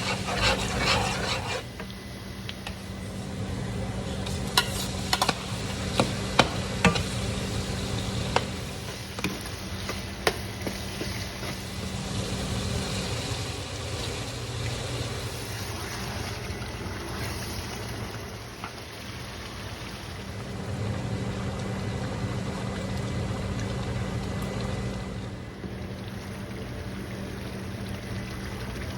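Food frying in a pan while being stirred, with a steady sizzle and a run of sharp knocks of the spatula against the pan between about four and eight seconds in. A low steady hum runs underneath.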